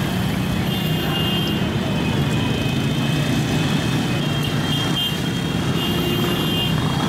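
Street traffic: motorcycle and car engines running close by in a steady low drone, with a thin high tone coming and going a few times.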